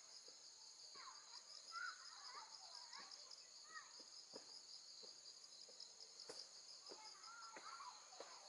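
Faint outdoor ambience: insects trilling in a steady high-pitched chorus, with faint distant voices and a few soft ticks.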